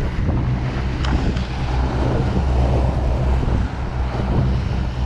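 A boat's outboard motors running steadily at cruising speed, a continuous low drone, with wind buffeting the microphone and the wake rushing behind.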